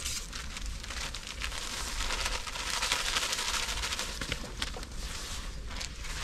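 Open wood fire crackling under a large pot of boiling water, with a packet crinkling in hand.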